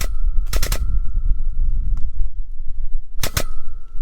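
Hand come-along ratchet being cranked: quick clusters of two or three sharp metallic clicks, one cluster per handle stroke, with a pause of about two seconds in the middle. It is pulling a bent truck frame straight under tension. A steady low rumble runs underneath.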